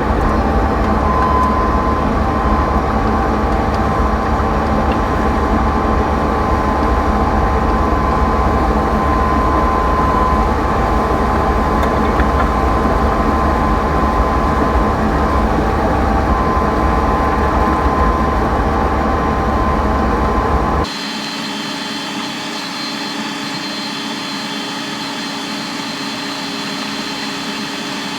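John Deere 9500 combine running steadily while harvesting corn: an even, loud machine drone with a steady whine over it. About 21 seconds in, the sound drops abruptly to a quieter steady hum with a higher-pitched whine.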